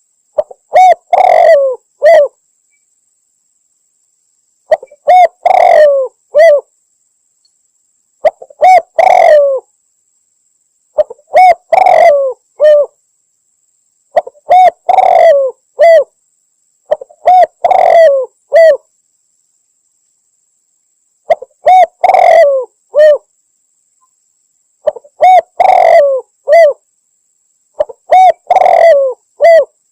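Spotted dove (tekukur) cooing call repeated nine times, each phrase of a few coos lasting about two seconds, with complete silence between phrases. It is a looped recording used as a hunting lure, which the uploader presents as a female calling a male.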